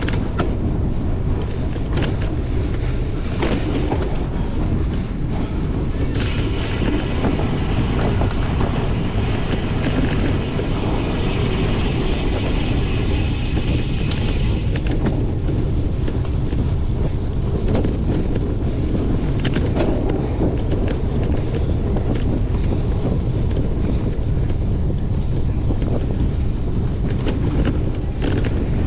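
Wind buffeting the microphone of a bike-mounted or rider-worn camera during a cyclocross race, with scattered clicks and rattles. A brighter hiss comes in about six seconds in and stops suddenly near the middle.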